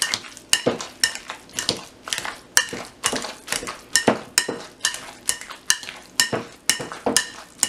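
Potato masher working avocado and lime juice in a glass bowl: a steady run of mashing strokes, about two to three a second, each with a sharp knock of the masher against the bowl.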